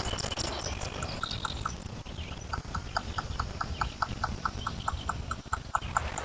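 Small lake waves lapping against shoreline stones, a low steady wash, with a fast, even clicking of about five ticks a second over it and faint bird chirps.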